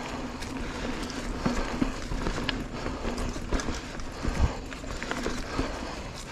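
Mountain bike riding down a dirt singletrack: tyre noise on dirt with irregular clatter and knocks from the bike over bumps, and a heavier thump about four seconds in.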